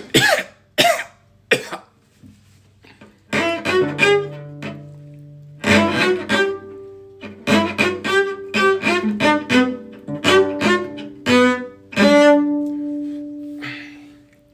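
A few sharp coughs, then a cello passage of bowed notes, the last note held and fading away.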